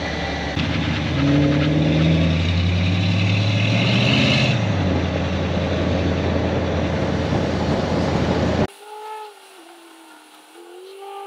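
A car driving with loud road and wind noise. The engine climbs in pitch as it accelerates for a few seconds, then eases off. About three-quarters of the way through it cuts off abruptly to a much quieter whirring tone that dips and then rises in pitch.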